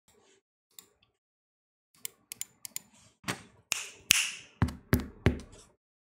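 Mechanical keyboard clicking and knocking as it is handled and a few keys are struck: scattered light clicks, a short swish about four seconds in, then three deeper thuds near the end.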